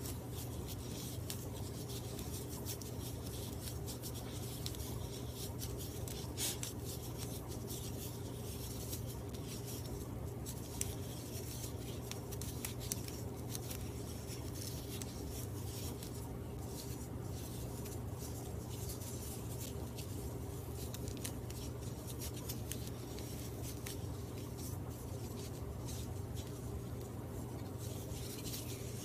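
Jute twine scratching and rubbing as hands wind it round and round the fabric-covered top of a craft pumpkin, with a couple of small ticks, over a steady low hum.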